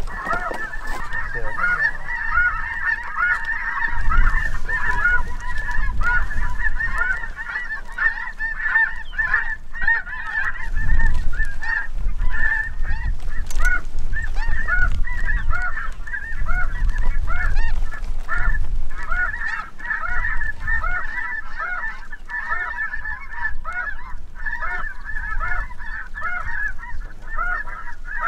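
Snow geese calling: a dense, unbroken chorus of many short, overlapping high-pitched honks. A low rumble comes and goes underneath.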